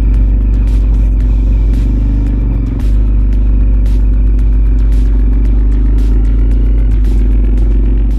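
Vehicle running steadily over rough offroad ground: a loud, steady low rumble with frequent short knocks and rattles.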